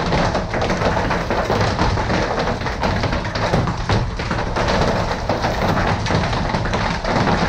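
Wind-driven hail and rain, a dense steady rush with many small hits in quick succession.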